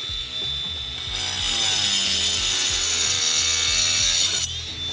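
Handheld power tool cutting into a roof slate. Its motor whine holds steady, the cut grows louder and grittier from about a second in, and the motor winds down near the end.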